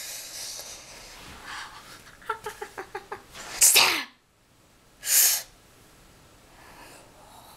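A boy's vocal noises: breathy hissing, a quick run of short pitched huffs, then a loud sneeze-like burst with a falling pitch about three and a half seconds in, and a short sharp hiss a second and a half later.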